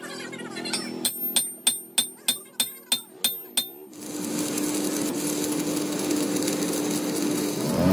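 A hammer strikes a steel crankshaft standing on end, about three ringing blows a second. About four seconds in, this gives way abruptly to the steady crackling hiss and hum of electric arc welding on a crankshaft journal, building up the worn surface.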